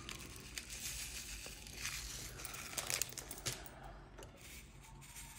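Small plastic bag crinkling softly as diamond-painting drills are tipped out of it into a 3D-printed plastic tray, with a few light clicks of the drills landing.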